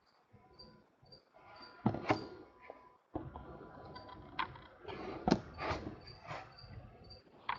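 Topps Chrome baseball cards and packs being handled on a table: irregular soft clicks, taps and rustles, a handful of sharper knocks in the second half.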